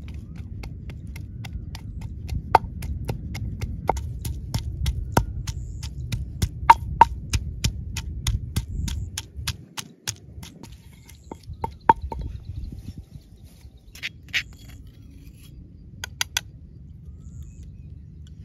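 Wooden pestle pounding garlic in a stone mortar: a steady run of sharp knocks about three a second. About nine and a half seconds in, the pounding slows to a few scattered knocks and then stops.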